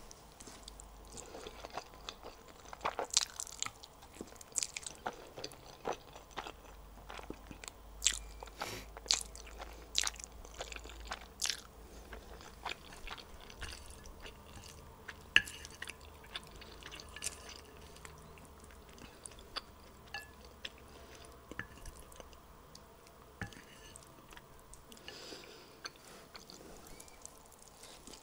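Close-up chewing of a mouthful of black bean sauce instant noodles: irregular wet smacks and clicks from the mouth, with no speech.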